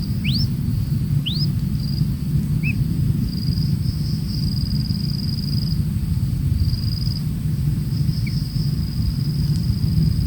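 A steady low rumble under a high, on-and-off insect buzz, with a few short rising whistled bird calls: two clear ones in the first couple of seconds and two fainter, shorter ones later.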